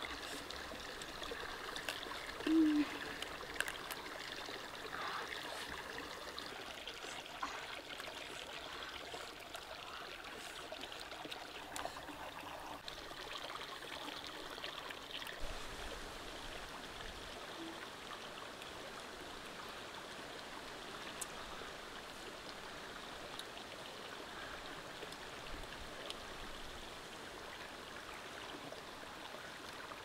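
Steady trickling of running water, with scattered faint clicks and one brief low squeak about two and a half seconds in.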